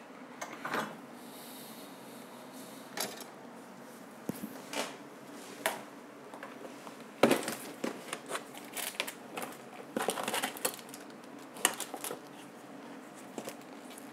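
Small hand tools clicking, tapping and scraping irregularly against a Nintendo 3DS circuit board while the old charging port is desoldered and pried loose, the loudest click about seven seconds in.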